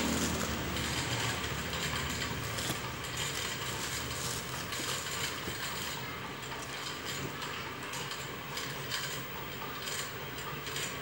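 Irregular clicks and rustling of a cardboard shoebox and trainers being handled.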